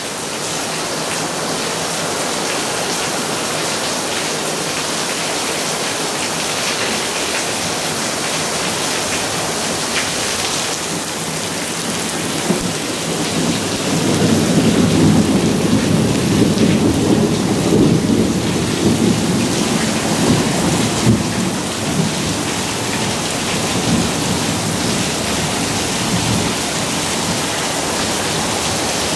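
Monsoon thunderstorm: steady rain falling, with a low rumble of thunder rolling for about seven seconds near the middle.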